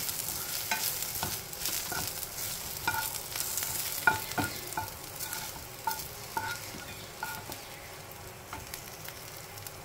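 Sliced onions sizzling in hot oil in a non-stick kadhai, stirred with a spatula, with short knocks and scrapes of the spatula against the pan. The sizzle grows fainter in the second half as the fried onions are scooped out.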